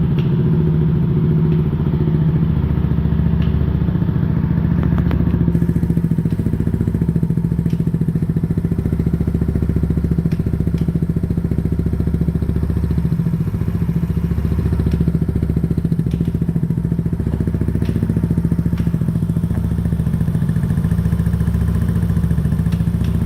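Yamaha Cygnus X scooter's single-cylinder engine running steadily, with irregular ticking and knocking noises over it. It is an abnormal noise on a 180,000 km scooter that the owner likens to poltergeist knocking and suspects comes from a muffler about to crack or from the transmission.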